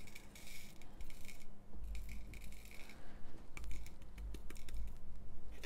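Diamond painting drills sliding out of the spout of a tipped 3D-printed plastic tray in short rushes, then scattered clicks as single drills drop, with dull bumps as the tray is knocked to keep them flowing.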